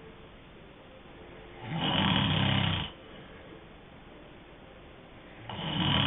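A sleeping person snoring: two snores about four seconds apart, each lasting about a second, with a low fluttering rattle. Softer breathing hiss fills the gaps.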